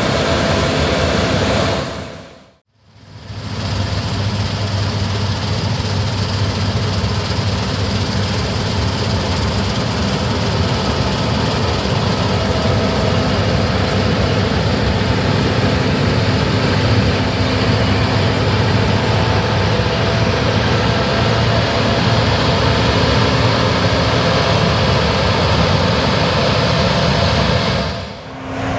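Gleaner R65 combine harvester running steadily while harvesting wheat: a loud engine drone with a strong low hum under the whir of the threshing machinery. The sound cuts out briefly about two and a half seconds in, then comes back just as steady.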